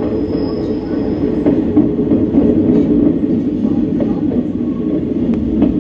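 Hanshin commuter train running through an underground tunnel, heard from inside the carriage: a loud, steady rumble of wheels and running gear. A faint high whine fades out about a second and a half in, and a couple of sharp clicks come near the end.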